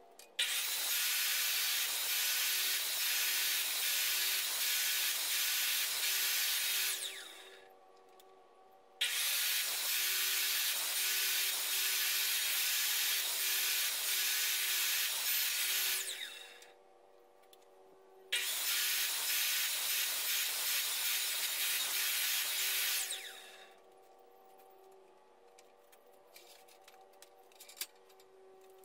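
Sliding miter saw cutting notches into two clamped red oak gunwale strips, with the depth stop set so the blade only goes partway through: three long cuts, each starting abruptly and tailing off as the saw winds down, with short pauses between. A single knock near the end.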